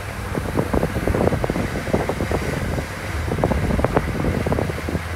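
Open-top vehicle driving slowly, its engine a steady low hum, with wind buffeting the microphone in irregular crackles.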